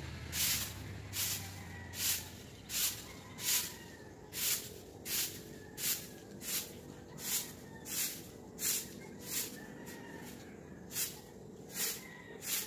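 Broom sweeping debris across a concrete yard: steady, regular swishing strokes, about three every two seconds, with a short pause about ten seconds in.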